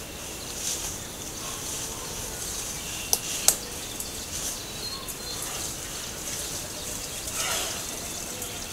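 Outdoor trail-camera ambience: a steady hiss with faint, scattered bird calls. Two sharp clicks stand out about three seconds in, and a curved, sweeping sound comes near the end.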